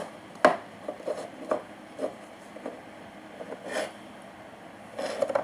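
A spoon knocking and scraping against a pot while thick slime is stirred: scattered short clicks, the sharpest about half a second in and a quick run of them near the end.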